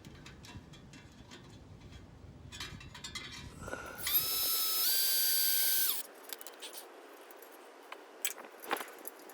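Cordless power driver running for about two seconds as it tightens a stainless steel hose clamp around an exhaust heat shield; its motor whine steps up in pitch partway through and stops abruptly. Light clicks and taps of handling the clamp and tool come before and after.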